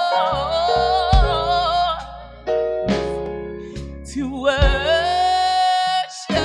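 A woman singing a slow song into a microphone, holding long notes with vibrato, over keyboard accompaniment.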